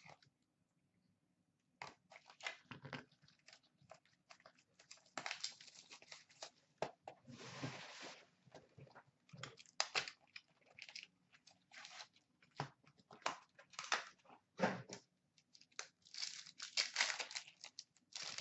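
Hands tearing open and unwrapping a sealed 13-14 Upper Deck Trilogy hockey card pack: irregular crinkling and tearing of the wrapper, with small clicks and rustles as the cards are handled. A longer tear comes about seven to eight seconds in.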